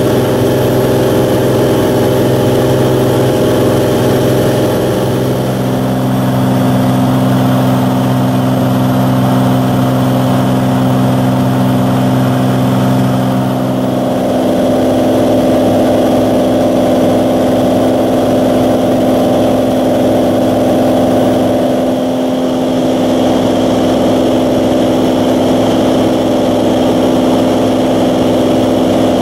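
Cirrus SR22's six-cylinder engine and propeller drone heard inside the cabin in cruise flight at about 74% power. The drone is steady, and the mix of its tones shifts about 5 and 14 seconds in.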